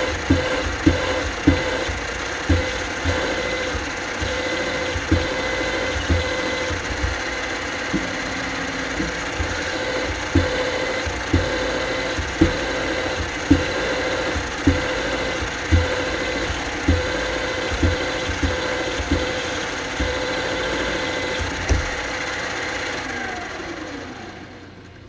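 Benchtop mill's motor running steadily while a drill bit is pecked into metal parts, with a sharp knock about once a second. Near the end the motor is switched off and winds down, its pitch falling.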